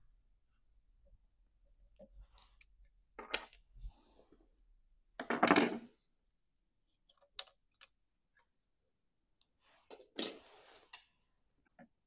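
Sporadic light clicks and clinks of small metal chainsaw clutch parts being handled on a workbench, with two short rustling noises, the louder one about halfway through and a second near the end.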